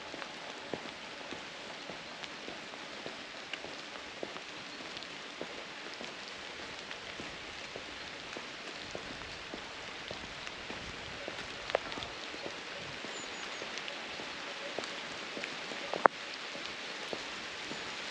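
Rain falling: a steady patter with many small drop ticks and a few louder single drops, the sharpest near the end.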